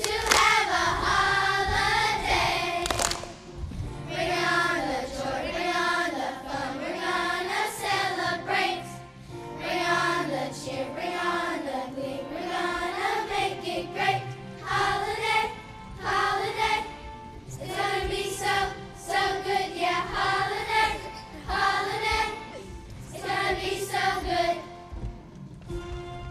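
Student choir singing in phrases with short breaths between them, over steady low accompaniment.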